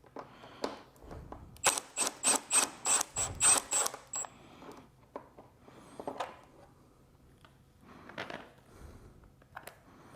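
Wrench turning an 8mm bolt on a pit bike: a quick run of about nine squeaky ratcheting strokes, about four a second, followed by scattered clicks and tool handling.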